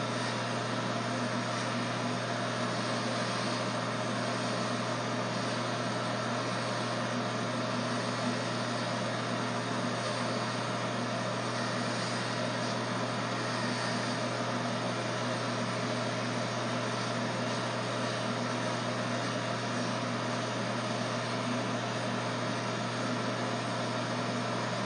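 Corded electric hair clippers running with a steady buzz as they cut hair close to the scalp.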